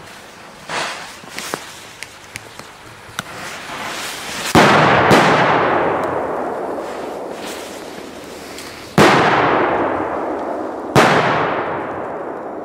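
Footsteps on grass, then three sudden, loud firecracker (Böller) bangs, each followed by a long echo that fades slowly among the trees.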